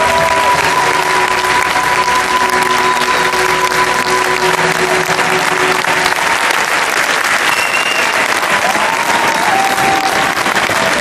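Audience applauding steadily in the circus tent, over held closing notes of music that fade out about halfway through.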